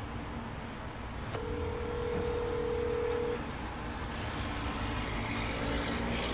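Street traffic at a city intersection: a steady low rumble of passing vehicles. A single steady tone starts with a click about a second in and holds for about two seconds.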